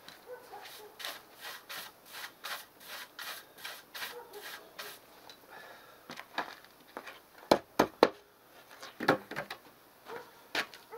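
Stiff-bristled broom sweeping snow in quick scratchy strokes, about three a second, for the first five seconds. Then come a quick run of four sharp knocks, the loudest sounds, and two more single knocks near the end.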